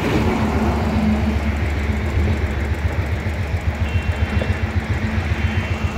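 Motorcycle engine running with a steady low rumble and an even pulsing beat.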